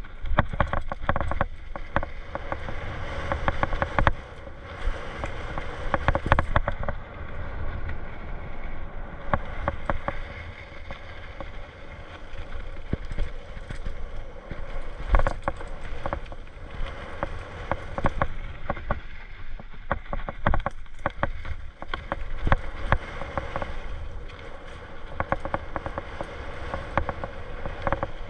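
Mountain bike descending a dirt trail: tyres rolling and the bike rattling and knocking over bumps, with wind rumble on the microphone.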